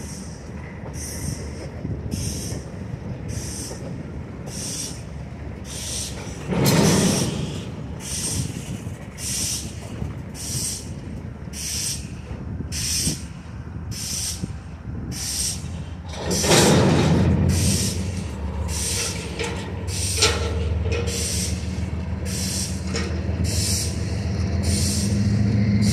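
Slow-moving string of bulkhead flatcars rolling on yard track, its wheels clicking sharply and evenly about three times every two seconds. Two loud bangs come about seven and sixteen seconds in. After the second, a diesel switcher locomotive's engine runs steadily and grows louder toward the end.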